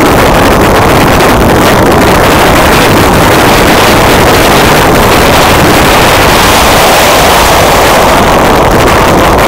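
Loud, steady wind noise on the microphone of a wing-mounted action camera on a radio-controlled plane in flight, mixed with the drone of the plane's battery-powered electric motor and propeller.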